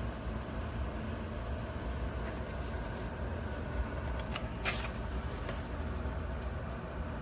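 Vornado Transom window fan running steadily with an even, constant noise. A few faint clicks and one brief sharp rustle come a little past halfway.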